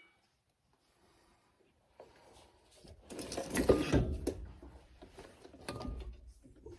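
Metal clinking and scraping as a sway bar bushing bracket is held up into place and its bolt is started by hand. The handling is loudest about three to four seconds in, with a few short ringing metallic clinks.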